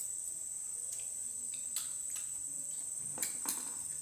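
Insects trilling steadily at a high pitch, with several light clicks of a metal spoon against a plate of rice porridge.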